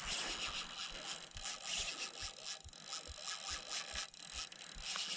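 Spinning reel being cranked against a big hooked fish: the rotor and gears whir with a low, regular knock about twice a second as the handle turns.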